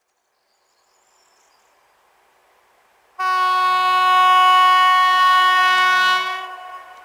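Diesel locomotive air horn, from a Fiat-built SU45 locomotive, sounding one long blast of about three seconds. It is a chord of several steady tones that starts suddenly and fades out, over the faint noise of the train approaching.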